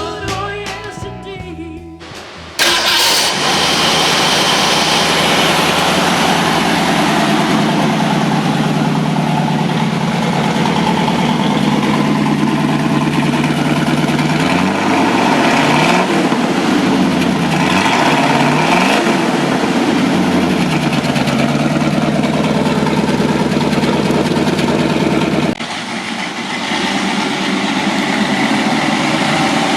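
1967 Ford Mustang's 289 cubic-inch V8 starts suddenly about two and a half seconds in and runs. It is revved several times in the middle, the pitch rising and falling, and drops back to a quieter steady idle a few seconds before the end. Music fades out in the first two seconds.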